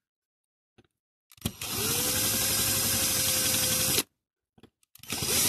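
Electric drill running in two bursts. It spins up about a second and a half in, its pitch rising then holding steady for about two and a half seconds, and stops suddenly. It starts again near the end.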